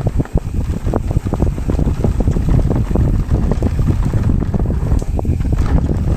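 Wind rushing over the microphone of a mountain bike's handlebar- or helmet-mounted camera, with the bike rattling and clicking quickly and irregularly as its tyres roll over a rough dirt trail.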